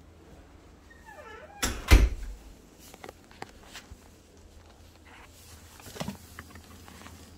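Handling knocks as household objects are bumped and moved. A loud thump comes about two seconds in, followed by a few light clicks and another thump about six seconds in.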